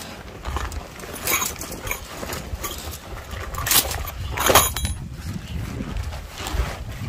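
Wind buffeting the microphone in a steady low rumble, with several loud swishing rustles and light clinks of tent fabric and gear being handled in a rainstorm.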